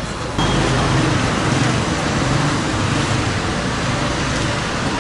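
Steady city street noise with road traffic running, stepping up abruptly about half a second in.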